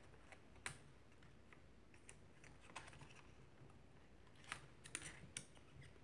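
Faint, scattered clicks and taps of fingers pressing a cable and the metal shield down inside an open iBook G3 laptop, with a few sharper clicks bunched near the end.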